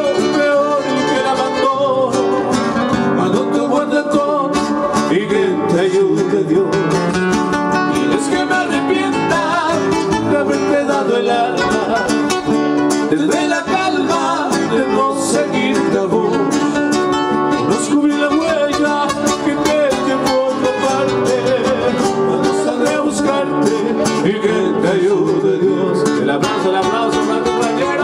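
A guitar trio playing live: acoustic guitars strumming and picking a melody, with singing at times.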